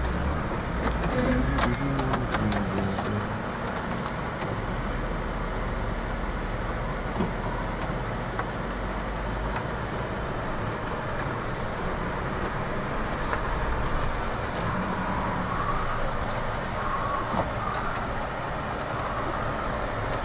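Jeep Wrangler running slowly over a rough, bumpy dirt trail, heard from inside the cabin: a steady engine and road rumble, with a burst of clicks and rattles about two seconds in.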